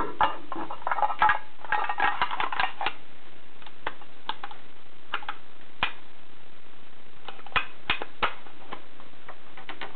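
Hard plastic and metal clicks and scraping as a 2.5-inch laptop hard drive is slid into its external enclosure case: a dense run of rattles and scrapes in the first three seconds, then scattered single clicks.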